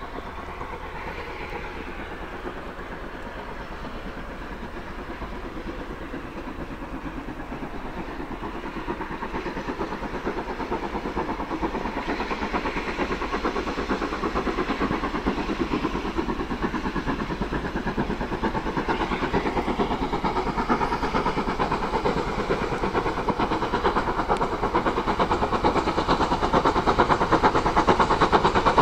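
Steam locomotive hauling a passenger train, working steadily with a rapid chuffing exhaust. It grows steadily louder as it approaches.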